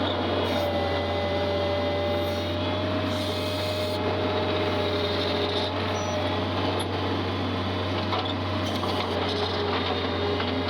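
Farm tractor's engine running steadily with a constant low hum.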